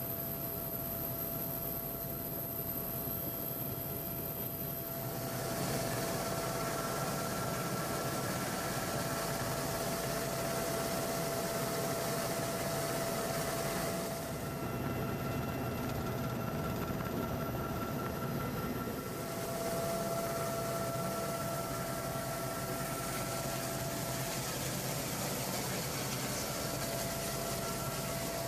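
Super Puma helicopter's twin turbine engines and rotor running, heard from inside the cabin: a steady drone with a high, constant whine. The rush of noise gets louder about five seconds in.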